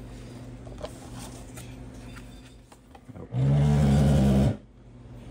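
A 1937 Zenith 6S128 tube radio powering up on reduced voltage through a dim-bulb current limiter. Over a faint steady hum, a sudden loud buzzing hum with a raspy edge bursts from it about three seconds in, lasts about a second, then cuts off abruptly. It is unexpected.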